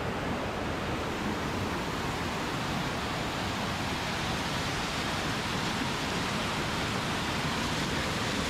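Waterfall cascading down stepped rock: a steady rush of falling water.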